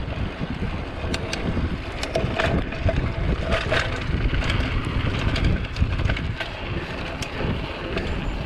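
Wind buffeting an action camera's microphone as a bike is ridden, a heavy, uneven rumble, with scattered sharp clicks and rattles from the bike.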